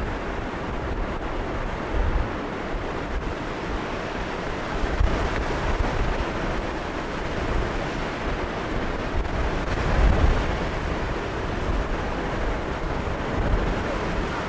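Strong wind rushing steadily across the microphone, buffeting it in gusts with low rumbles; the loudest gust comes about ten seconds in.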